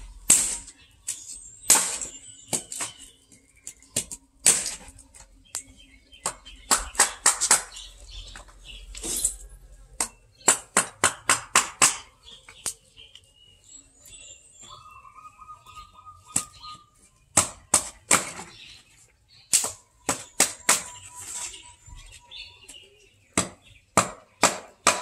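A cat chewing fresh fish close to the microphone: wet smacking and crunching bites in runs of about four a second, with short pauses between runs.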